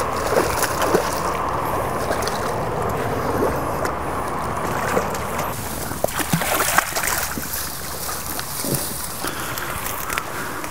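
Small river running steadily over rapids, with a few short splashes at the water's edge as a rainbow trout is landed in a net.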